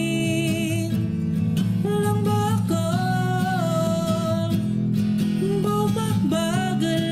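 Young male singer singing a Tagalog ballad over acoustic guitar, holding long notes, some with vibrato.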